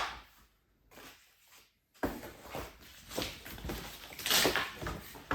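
Near silence, then from about two seconds in irregular rustling, knocking and scraping of flat-pack furniture panels and parts being handled and searched through, with a louder knock near the end.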